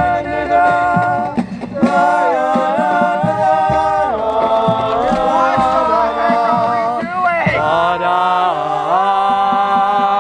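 Music: a voice singing a melody of long held notes that step up and down, over a light ticking beat.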